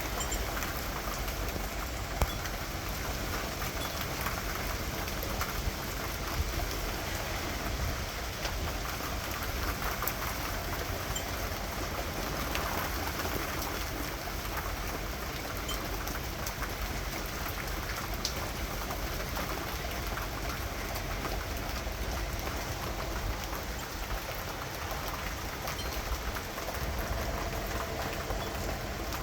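Steady rain falling, a dense even patter with scattered individual drops ticking on surfaces.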